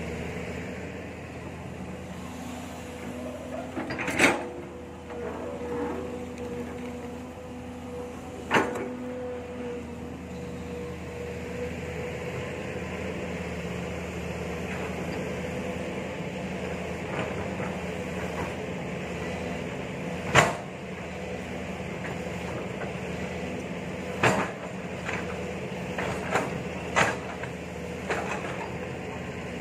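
Kobelco SK07 long-arm excavator running steadily as the boom and bucket work, with a held whine through much of it. Sharp knocks or clanks cut in about four seconds in, again near eight and twenty seconds, and several times close together near the end.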